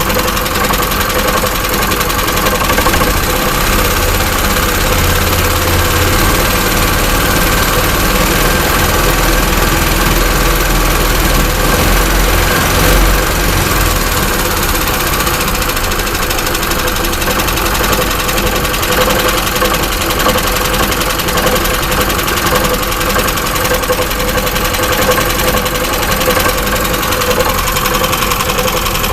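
Vehicle engine idling with an intermittent knock, which the owner places somewhere in the driveshaft and U-joints between engine and gearbox and cannot pin down; it goes away when the revs are raised. The low hum grows stronger about 4 seconds in and settles back about 13 seconds in.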